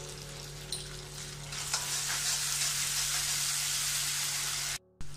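Vegetables in sauce sizzling in a wok, stirred with a metal spatula, over a steady low hum. The sizzle grows louder about a second and a half in, with a couple of light clicks from the spatula, and cuts off abruptly near the end.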